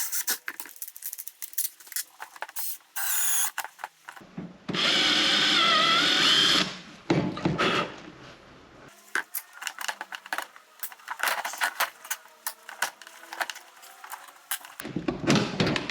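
Power drill drilling out a stuck guide pin in a headlight: a short burst, then a run of about two seconds whose pitch wavers under load, with small clicks and knocks of handling around it.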